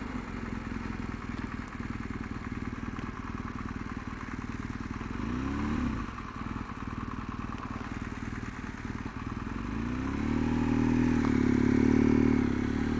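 BMW R1200 GS Adventure's flat-twin engine running through a roundabout. The revs rise briefly about halfway through, then climb again and get louder as the bike accelerates near the end.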